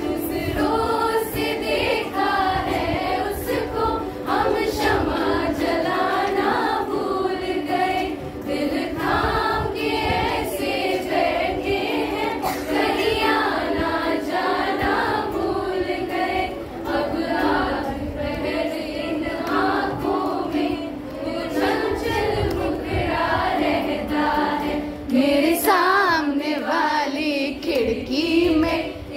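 A group of voices singing a song melody over steady held accompaniment notes, with no clear words.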